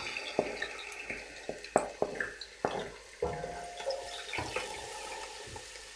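Chopped red onions sizzling in hot oil in a pot, with a wooden spoon knocking and scraping against the pot as they are stirred. The sizzle slowly dies down.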